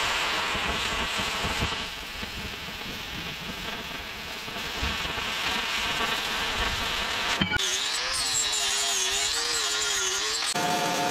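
Oxy-fuel cutting torch hissing steadily as it cuts through steel plate. About seven seconds in, an angle grinder with a flap disc takes over, its whine wavering in pitch as it grinds the cut edge.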